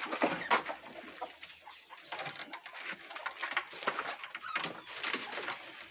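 Chickens clucking, with scattered rustling and clicks.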